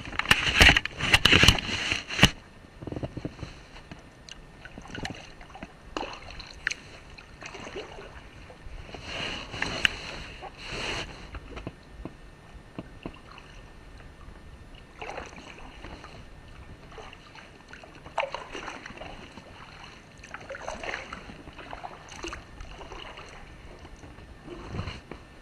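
Kayak paddle strokes: the blades dipping and splashing in the water in irregular bunches, loudest in the first couple of seconds and again around ten seconds in and through the second half.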